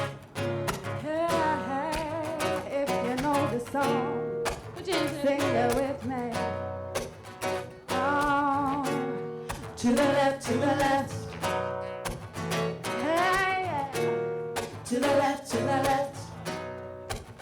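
Live vocal group singing wordless, wavering held notes in harmony over a strummed acoustic guitar.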